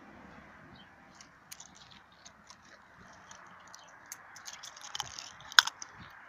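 Mouth noises close to the microphone: a scatter of small wet clicks and smacks of lips, tongue and teeth, getting busier towards the end, with one sharper click about five and a half seconds in.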